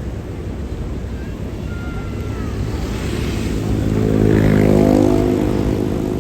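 A bus engine passing close by, its hum building to a peak about four to five seconds in and then easing off.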